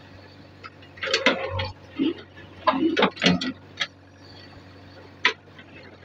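JCB 3DX backhoe digging: a quick run of sharp knocks and clatters from the bucket working soil and stones, mostly between about one and four seconds in with one more near the end, over the engine's faint steady hum.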